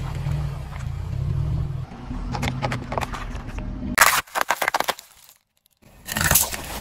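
A car tyre rolling slowly over small objects and crushing them, over a low engine rumble. There are sharp crackling, crunching bursts about four seconds in and again near the end.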